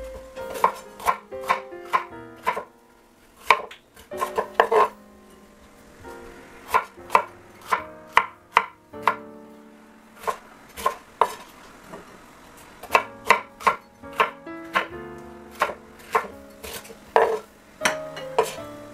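Chef's knife chopping bell peppers on a wooden cutting board: sharp, irregular strikes in quick runs with short pauses between.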